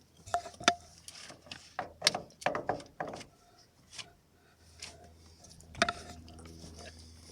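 A series of sharp knocks and clatters, like a door and handling, then about four and a half seconds in a low steady engine hum sets in and keeps running.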